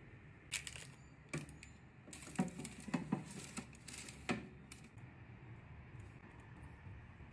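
Handling sounds as a baking-paper-lined tray of buns is slid into a small countertop oven: a run of sharp clicks and light knocks with some paper crinkling, bunched together in the middle, with a last knock a little after four seconds in.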